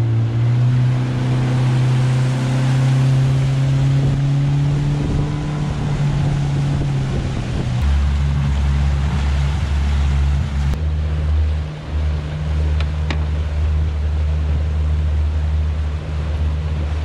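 Yamaha 70 hp outboard motor running steadily at cruising speed, driving a small skiff, with wind and water rushing along the hull.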